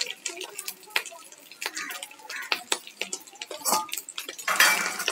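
Fish roe fritter deep-frying in hot oil in a kadai: scattered sharp pops and crackles of spattering oil, with a brief louder rush of noise about four and a half seconds in.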